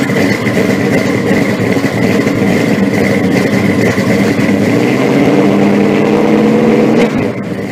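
A car engine running loudly and steadily, with a high whine held above it; it falls away near the end and cuts off.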